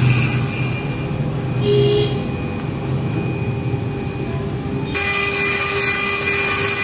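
Spindle of a small CNC micro mill running with a small end mill cutting an aluminium block: a steady high-pitched whine over a lower hum. The high part fades about a second in and cuts back in abruptly about five seconds in.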